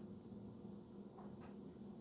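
Small drive motor of a JBC CLMB-A soldering tip cleaner running with a faint, steady hum, sounding healthy; two faint ticks come after about a second.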